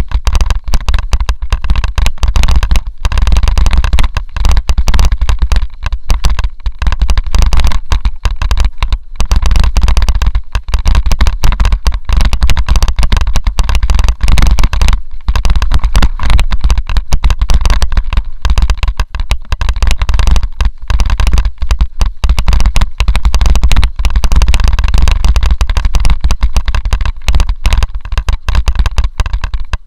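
Mountain bike descending a rough dirt trail, heard through an action camera: a loud constant rumble of wind and vibration on the microphone with dense, rapid clattering and knocking as the bike and camera mount jolt over the ground.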